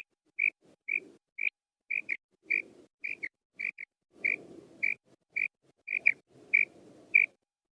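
Female quail calling: a run of short, high notes repeated about twice a second, some given as quick doubled notes, with a low rough sound under many of them. The calls stop shortly before the end.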